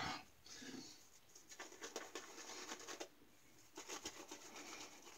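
Synthetic-knot shaving brush working soap lather onto a bearded cheek: a soft, scratchy rubbing in two stretches, with a brief pause a little past the middle.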